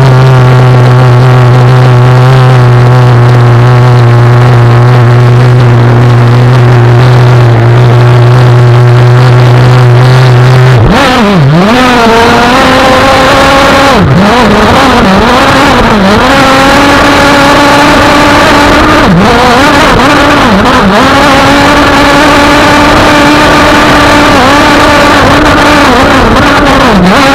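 Two-stroke engine of a radio-controlled racing boat with a tuned exhaust pipe, very loud from on board. It idles at a steady pitch for about ten seconds, then revs up and runs at speed, its pitch dipping and climbing again and again as the throttle is eased and opened.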